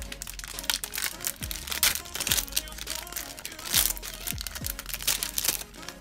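Packaging being opened by hand: a dense run of short crackles and rustles throughout, over background music.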